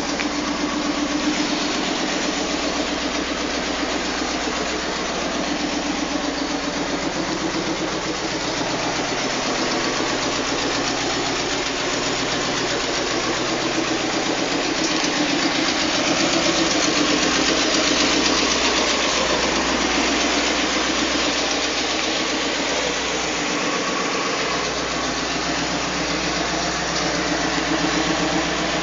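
1990 Cadillac Sedan DeVille's 4.5-litre V8 idling steadily.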